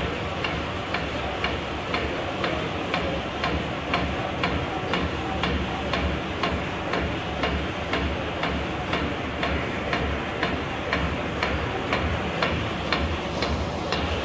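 Shiki PC-4530 flatbed label printing press running: a steady machine hum with a regular click about two to three times a second as it cycles.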